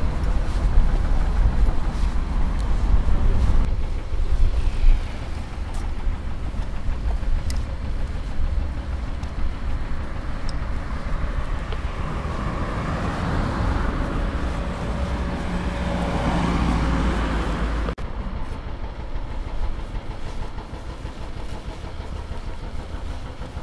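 Outdoor street ambience with a car driving past: its sound swells over several seconds and then cuts off abruptly, leaving quieter background, over a steady low rumble.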